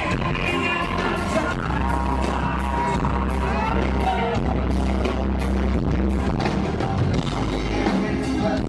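Live rock band heard from the audience: a male lead singer singing over drums, upright bass and keyboards, with a heavy low end and repeated drum hits. It is a rough, poor-quality crowd recording of the concert.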